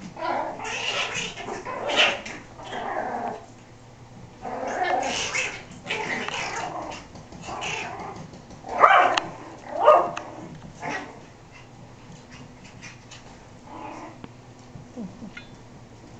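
Yorkshire terrier puppies play-fighting, growling and yipping in short bursts. The loudest two come about a second apart near the middle, and it quietens for the last few seconds.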